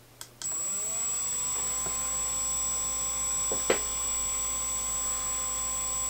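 Woodpecker 3018 CNC router's DC spindle motor, run from a PWM MOSFET controller, switched on at its lowest speed: a click, then it spins up over about half a second and settles into a steady whirr with a high whine, at about 3,000 rpm. A short click sounds near the middle.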